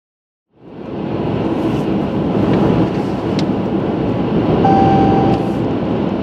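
Steady road and engine noise inside a moving car's cabin, fading in about half a second in. A short steady beep sounds for under a second near the end, with a few faint clicks scattered through.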